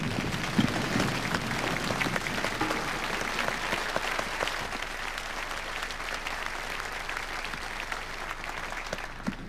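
Applause from a large seated crowd: many hands clapping at once, gradually dying down toward the end.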